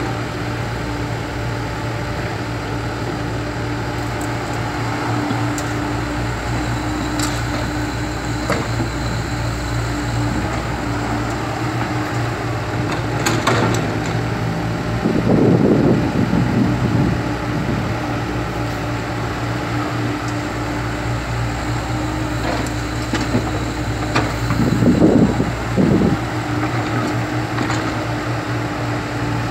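Komatsu PC70 excavator's diesel engine running steadily with a constant hum. It grows louder and rougher twice: around the middle for a couple of seconds, and again briefly about four seconds before the end.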